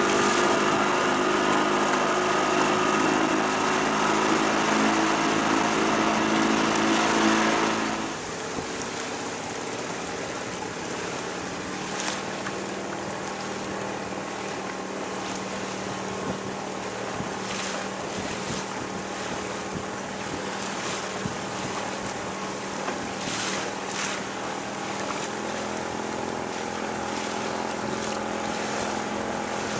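Motorboat engine running steadily, then dropping sharply to a lower, quieter hum about eight seconds in. Water washes against a hull and wind blows over the microphone, with a few brief splashes.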